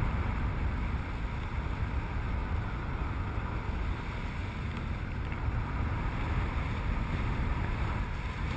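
Wind rushing over the microphone during a parachute flight: a steady rush with a heavy low rumble.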